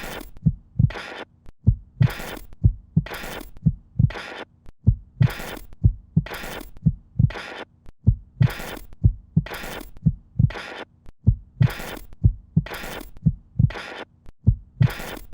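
Rhythmic heartbeat-like pulse: low thumps alternating with short hissy bursts about twice a second, over a faint steady low hum.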